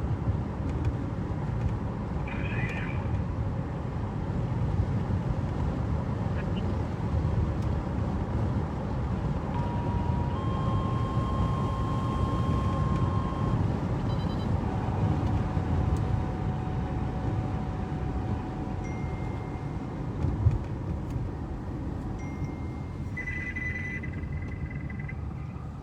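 Road noise inside a moving car: a steady low rumble of tyres and engine. A few faint steady tones come and go through the middle and latter part.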